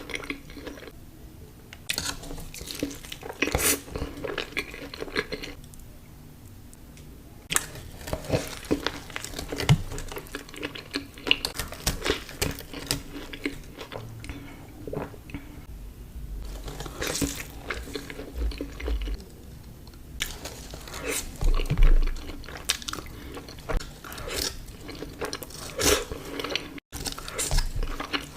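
Close-miked eating sounds: crispy fried chicken crunching and being chewed, in irregular bursts of sharp crackles with short pauses between bites.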